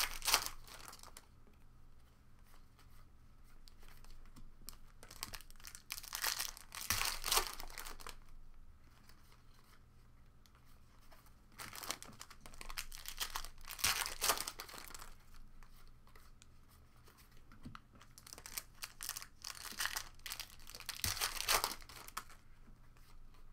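Foil wrappers of Contenders Hockey card packs being torn open and crinkled by hand, in about four bouts of a few seconds each with quieter stretches between.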